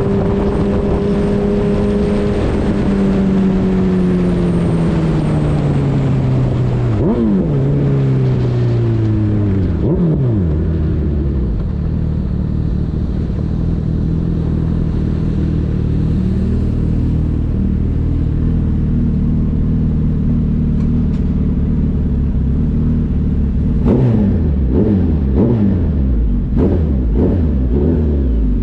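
Suzuki Hayabusa's inline-four engine slowing, its pitch falling over the first ten seconds with two gear changes around seven and ten seconds in. It then runs steady at low revs, and near the end it is revved several times in quick blips.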